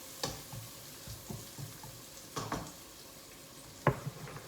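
Garlic and onions sizzling in hot oil in a frying pan, with several clacks of a utensil or ingredients against the pan and a sharp knock near the end.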